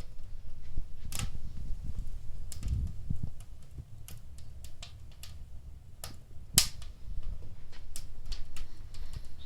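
Fire crackling in a fireplace: irregular sharp pops and snaps over a low rumble, with the loudest pop about six and a half seconds in.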